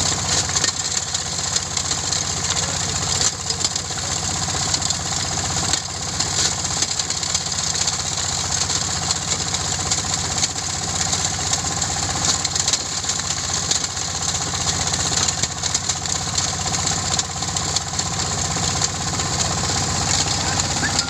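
Stone-crushing (gravel grinding) machine running steadily: a constant engine drone under a continuous rattling, grinding hiss.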